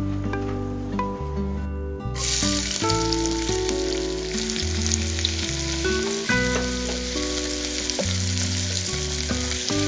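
Chopped onions sizzling as they fry in hot oil and ghee in an aluminium pressure cooker, stirred with a spoon. The sizzling starts suddenly about two seconds in, over background music.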